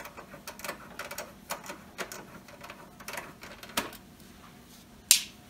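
Hand screwdriver working a screw out of a desktop computer's sheet-steel case: a run of irregular light clicks and ticks of the bit and screw against the metal, with one sharper click about five seconds in.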